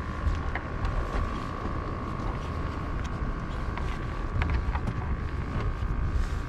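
Wind buffeting the microphone, with a steady high hum in the background. Scattered light clicks and taps come from handling a pompano and the jig hook in its mouth on a plastic fish-measuring board.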